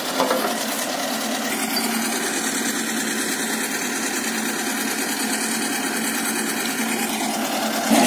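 Small tracked logging skidder's engine running steadily.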